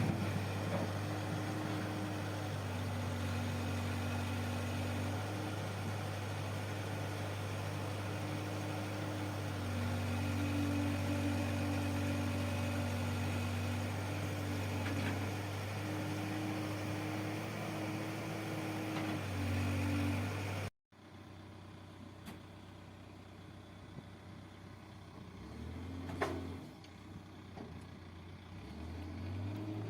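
Backhoe loader's diesel engine running steadily, its pitch stepping slightly up and down as it works. About two-thirds of the way through the sound cuts off abruptly and comes back quieter, then builds again near the end.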